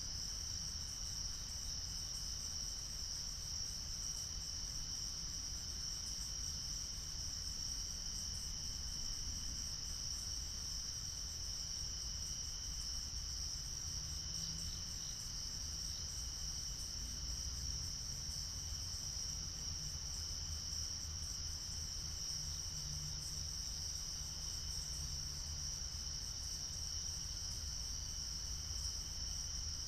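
Crickets calling in a steady, high-pitched night chorus, over a faint low rumble.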